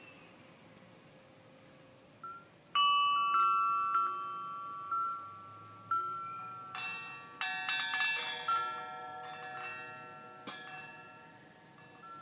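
North Country wind bells ringing: after a couple of quiet seconds, single metallic strikes with long, slowly fading tones, then a quick cluster of many overlapping strikes about seven to nine seconds in, and a few more strikes that ring out.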